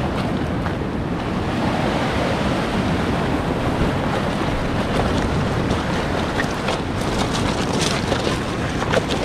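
Wind buffeting the microphone over choppy sea surf breaking against the rocks of a jetty, a steady rushing noise, with a few short clicks near the end.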